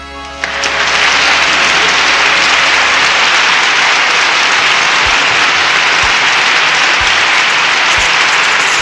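Loud, steady applause swells up in about half a second as a song's backing music ends. Faint low thumps come about once a second from about five seconds in.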